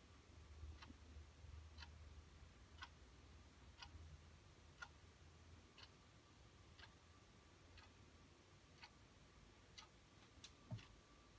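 Faint clock ticking about once a second over near-silent room tone, with a low hum in the first half and one slightly louder knock near the end.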